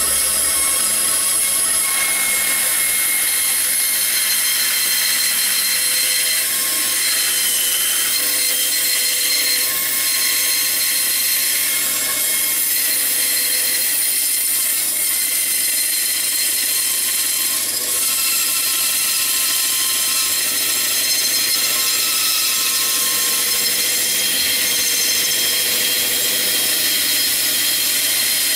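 Band saw running steadily with a constant whine, its blade cutting through a thick block of wood as it is fed by hand.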